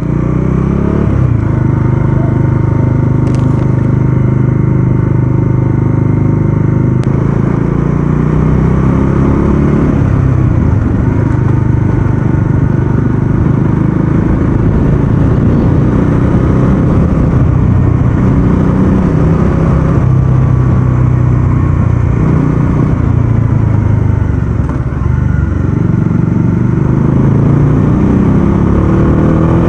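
Bajaj Dominar 400's single-cylinder engine running under way, heard from the rider's seat, its pitch rising and falling several times with the throttle.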